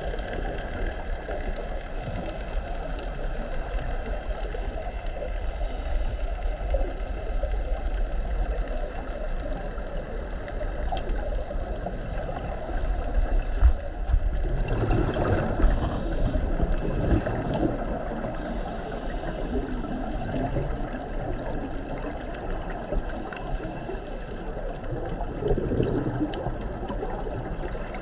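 Muffled underwater rumble heard through a camera housing, with gurgling swells of a scuba diver's exhaled regulator bubbles every few seconds in the second half.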